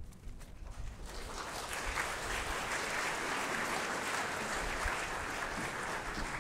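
Audience applauding, swelling about a second in and starting to die away near the end.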